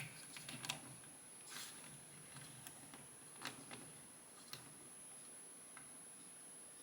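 Near silence with a few faint, scattered clicks and taps of snap-fit plastic model-kit parts being handled.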